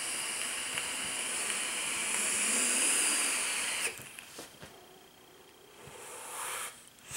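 Long, steady hiss of a draw on a rebuildable dripping atomizer vape with its coil firing. It cuts off about four seconds in and is followed by a softer breathy exhale.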